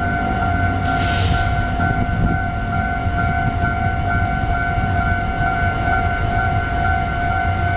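Level crossing warning alarm sounding: steady electronic tones, the higher one pulsing at an even rate, over a low rumble.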